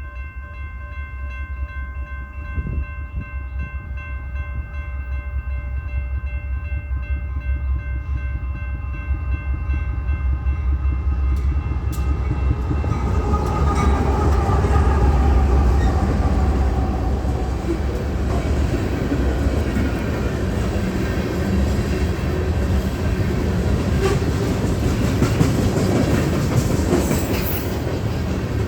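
Union Pacific coal train: a steady horn chord sounds for about the first dozen seconds as the train approaches, dipping in pitch as it goes by, then the loud rumble and wheel clatter of the train rolling past.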